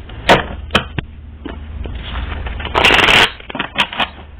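A deck of tarot cards shuffled by hand: a few sharp card snaps, then a dense riffle lasting about half a second, near three seconds in.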